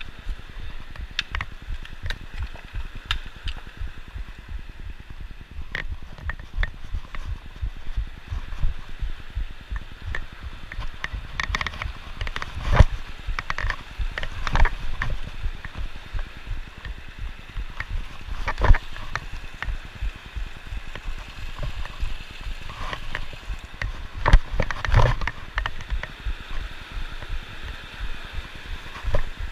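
A mountain creek rushing over boulders, a steady hiss, under irregular scuffs and knocks of footsteps on the rocky creek bed. A few sharper knocks stand out, about halfway through and again near the end.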